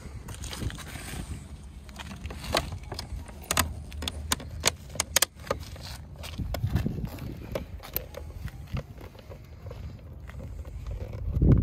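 Carbon fiber mirror cover being handled and pressed onto a car's side mirror housing: scattered sharp clicks and taps of the shell and its plastic tabs against the housing, thickest a few seconds in, over a steady low rumble, with a heavier thump near the end.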